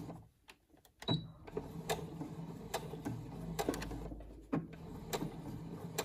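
Domestic electric sewing machine starting about a second in and running steadily, its motor humming under rapid needle ticks, with a short change in the middle, as a seam is begun with stitches forward and back (a backstitch).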